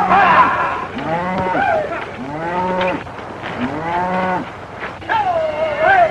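A herd of cattle bawling while being driven: about five long moos that rise and fall in pitch, one after another and partly overlapping.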